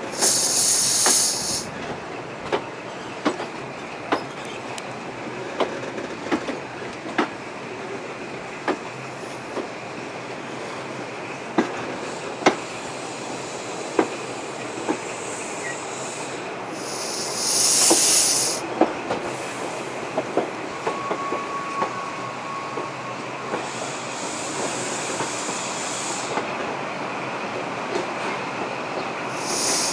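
High Speed Train (InterCity 125) coach rolling slowly into a terminus platform: a steady running noise with irregular sharp clicks of wheels over rail joints, and a high-pitched squeal from the wheels or brakes that comes and goes several times, loudest about a second in and again around the middle.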